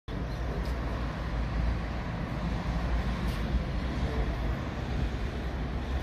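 Steady low outdoor rumble of background noise, strongest in the deep bass, with no distinct events.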